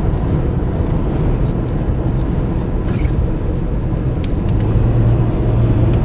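Steady low rumble of a car's engine and road noise heard from inside the cabin; a low hum grows stronger about four and a half seconds in.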